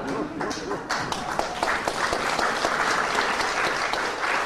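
Theatre audience applauding: dense clapping that starts about half a second in, grows fuller, and carries on steadily.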